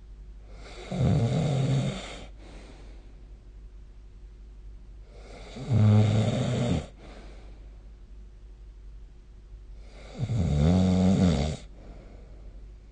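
A person snoring: three loud pitched snores, each a second or so long, about four to five seconds apart.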